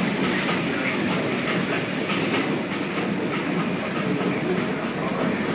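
Steady, dense mechanical clatter made of many fast clicks.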